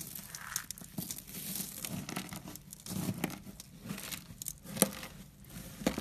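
Brittle flakes being crushed and stirred by hands: an irregular crinkly crunching and rustling of many small cracks, with two sharper, louder cracks in the last second or so.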